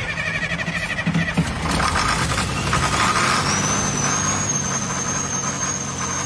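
Old bulldozer's diesel engine being cranked by its starter, then catching and running steadily, with a high whine that rises about three seconds in and then holds.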